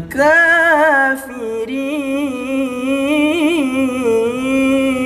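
Young man's solo Qur'an recitation in the melodic tilawah style: one drawn-out vocal line, wavering and ornamented, with a short break about a second in.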